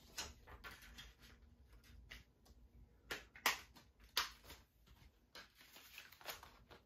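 Faint handling of a plastic Blu-ray case, with soft rustling and a handful of sharp plastic clicks, the loudest about three and a half seconds in.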